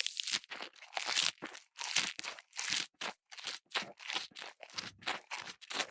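Someone chewing crunchy food close to the microphone: a quick, steady run of crunches, about three a second.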